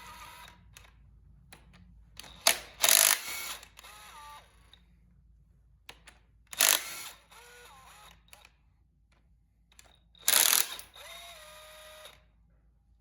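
Sharp metal-on-metal clanks, about four of them spread apart, each leaving a short ringing tone. They are steel tools and loose engine parts being handled while main bearing caps come off an old tractor engine.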